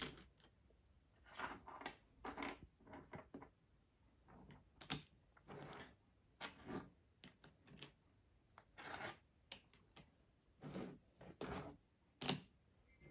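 Plastic pieces of a 4x4 Rubik's Cube clicking and rubbing as they are pressed into place by hand: about ten short, faint clicks and rustles, unevenly spaced.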